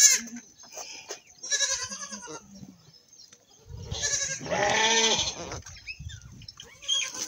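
Goats bleating: a shorter bleat about a second and a half in, then a longer, louder one about four seconds in.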